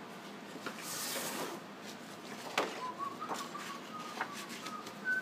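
Paper rustling as a sheet is folded, a sharp tap, then a felt-tip marker squeaking in short strokes as it traces a line on the paper.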